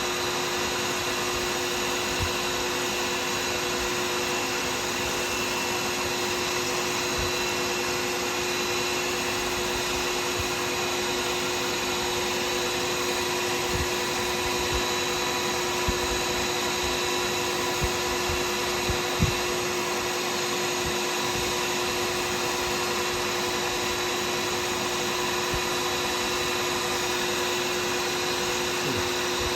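Lathe motor running steadily with a constant whine while a pen blank on it is buffed, with a few faint knocks.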